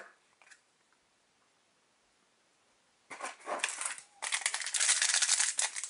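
Foil wrapper of a trading-card booster pack crinkling in the hands, starting about halfway in after a few seconds of near silence.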